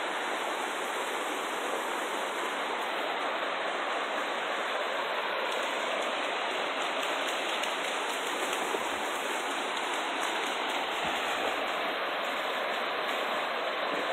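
Stream water rushing steadily, an even, unbroken wash of sound.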